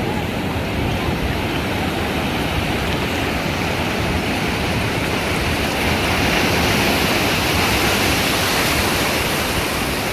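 Ocean surf breaking and washing up the beach: a steady rush of water that swells louder about six seconds in, then eases.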